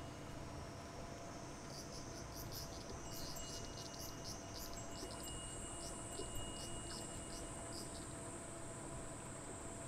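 Insects singing: a high, steady buzz that steps up in pitch about five seconds in, with short repeated chirps through the middle, over a steady low hum.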